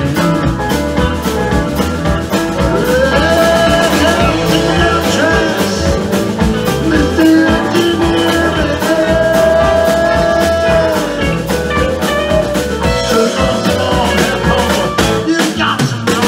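Live rock band playing: electric guitars, keyboard and drum kit. A lead line holds long notes that slide up into pitch, twice.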